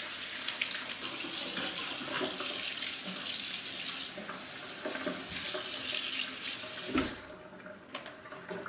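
Kitchen faucet running water into the sink basin as it is rinsed out, the stream splashing on the basin; the water cuts off about seven seconds in, followed by a few faint knocks.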